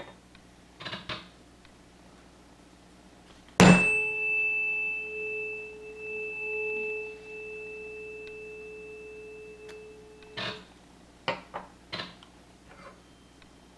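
A 427 Hz tuning fork struck once, about four seconds in, then ringing with a clear, steady pure tone and a faint high overtone for about seven seconds before it is cut off abruptly. A few light knocks follow near the end as the forks are handled on the table.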